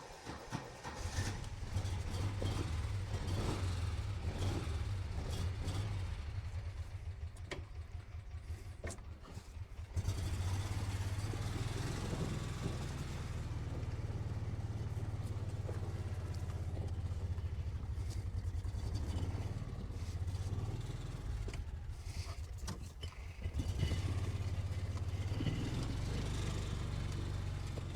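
Kawasaki Mule utility vehicle's engine running steadily while driving, getting louder about ten seconds in and easing briefly a little before the end.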